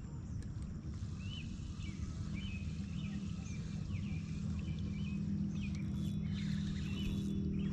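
Small birds chirping repeatedly in short, quick chirps over a steady low hum.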